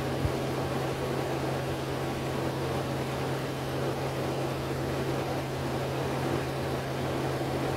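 Steady drone inside a city transit bus standing in traffic: the bus's engine idling, an even low hum under a broad hiss, with one light knock near the start.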